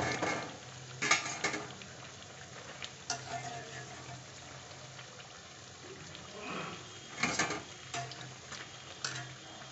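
Sabudana vadas deep-frying in a steel kadai of hot oil, a steady sizzle. Metal tongs clink and scrape against the pan about a second in and again later on.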